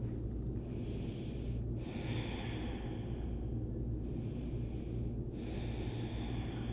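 A person breathing slowly and audibly through the nose in child's pose: long, soft inhales and exhales with brief pauses at the turns, over a steady low hum.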